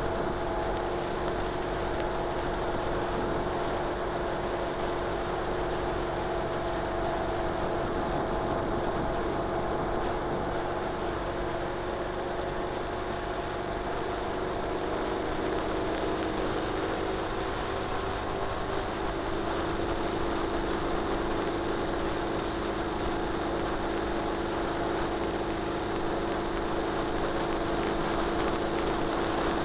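Ural Retro sidecar motorcycle's flat-twin engine running steadily at road speed, under wind and road noise.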